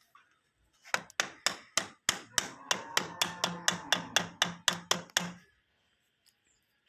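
A hammer striking rapidly and evenly, about four blows a second for some four seconds, then stopping.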